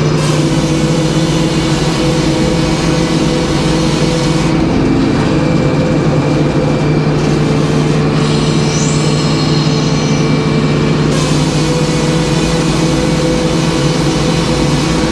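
Edmiston hydraulic circular sawmill running with a steady drone, its large circular blade spinning as a poplar cant is sawn.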